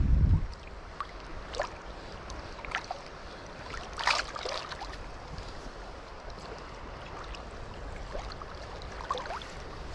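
Water lapping and splashing in small, irregular splashes and gurgles over a steady wash of water noise, with a brief gust of wind on the microphone at the very start.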